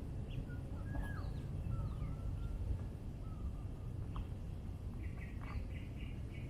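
Scattered short bird chirps and whistles over a steady low rumble of outdoor background noise.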